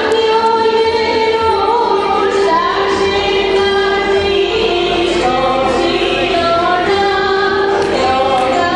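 Music with singing: voices carry a melody in long held notes.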